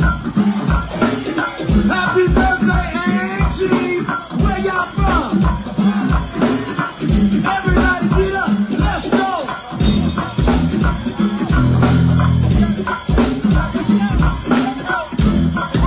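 Live go-go band music: a driving drum and percussion groove with voices over it, and the bass grows heavier about ten seconds in.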